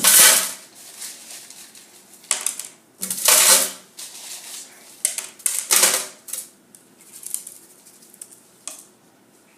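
Ice cubes clattering and clinking as they are poured into a container, in several short bursts.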